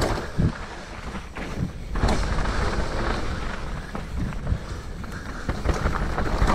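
Mountain bike riding down a muddy trail: tyres running over wet dirt, with the bike knocking and rattling over rough ground several times.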